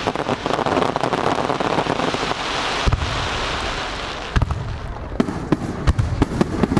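Aerial fireworks bursting close overhead: a dense crackling wash from many small bursts, then a series of sharp booms from about three seconds in, with quick crackles between them.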